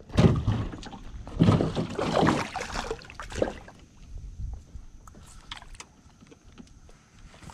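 Handling noise in a small canoe: a run of bumps and rustling against the hull for the first three and a half seconds, then quieter scattered taps.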